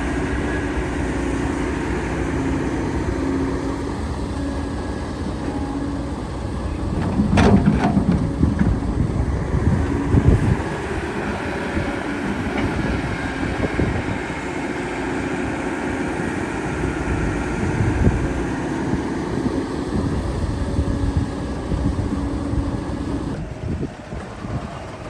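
Excavator's diesel engine running steadily, with loud heavy knocks and crashes about seven and ten seconds in.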